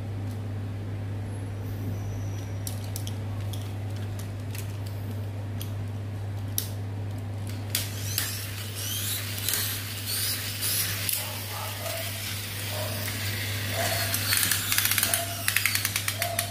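Pull-back toy battle cars: a few sharp clicks, then from about eight seconds in the high-pitched, ear-piercing whir of their wound-up gear motors as two cars drive and push against each other, growing denser and pulsing near the end.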